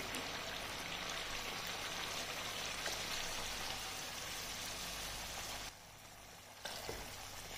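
Water poured steadily from a glass into a pot of chicken fried in oil and spices, a steady splashing hiss as it hits the hot masala. It cuts off abruptly a bit more than halfway through, and a quieter simmer goes on after it.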